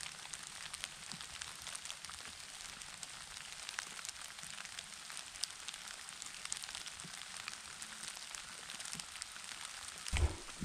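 Small hail mixed with rain falling: a steady patter full of many small, sharp ticks.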